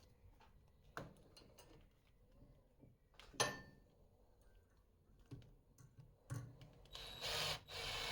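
A few sharp clicks and knocks of wire and tools being handled, then near the end a drill starts running, twisting a piece of stainless steel wire around a nail into a line tie.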